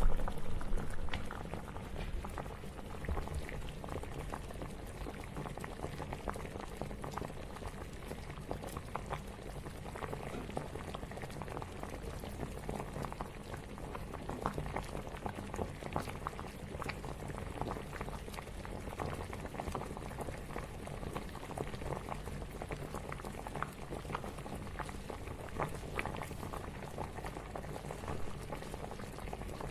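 Water boiling hard, bubbling steadily with many small pops; a little louder for the first second or so, then even.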